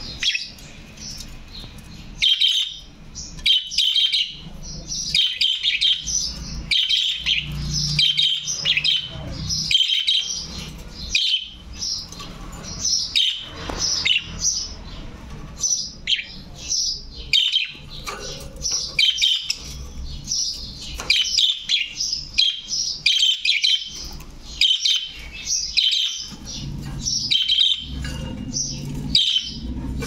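Budgerigars chirping and chattering without pause, many quick high chirps tumbling over one another.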